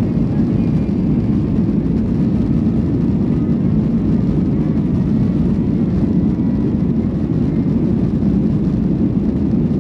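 Cabin noise of a Boeing 737-800 on its takeoff roll, heard from a window seat: its CFM56-7B engines at takeoff thrust and the wheels rolling on the runway make a steady, deep rumble.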